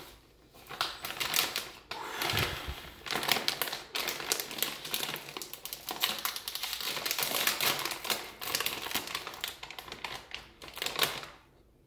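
Snack chip bag crinkling and crackling as it is pulled open by hand, in dense bursts of rustle, with a low bump about two seconds in.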